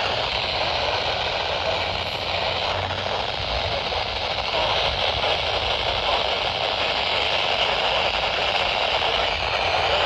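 Steady radio static hiss from a weather radio receiver tuned to a NOAA Weather Radio broadcast. The station's signal has faded out, so the warning voice is lost under the noise.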